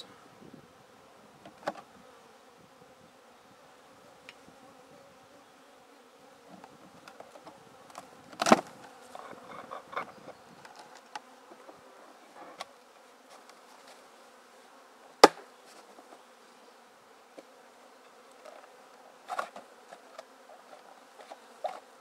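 Honeybees buzzing steadily around an opened hive, with occasional knocks of wooden hive boxes being handled; the loudest are a thud about eight seconds in and a sharp knock about fifteen seconds in.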